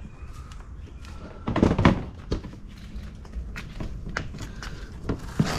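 Hollow knocks and light rattling of a moulded plastic cover panel being handled and pressed against a plastic toilet body, with a cluster of louder knocks about one and a half seconds in and another thump near the end.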